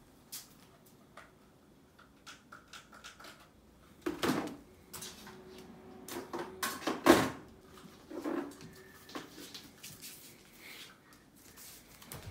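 Scattered light knocks, thumps and rustles from a cat playing with a string wand toy around a carpeted cat tree on a wooden floor, with a louder cluster about four seconds in and the loudest thump about seven seconds in.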